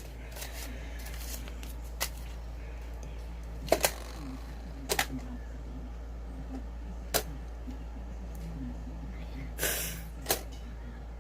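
Coins being counted by hand: scattered sharp clicks, some in quick pairs, as coins are picked up and set down, with a short rustle near the end, over a low steady hum.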